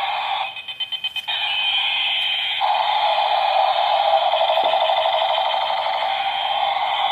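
Battery-powered toy airplane playing electronic sound effects through its small tinny speaker. A rapid stuttering pulse about half a second in gives way to a steady warbling tone, between siren-like sweeps.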